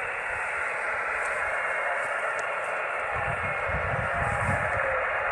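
Steady hiss of an amateur radio receiver's speaker, the narrow band of receiver noise with no station coming through, part of a home-built 78 GHz microwave rig. Low rumbles join in about halfway through.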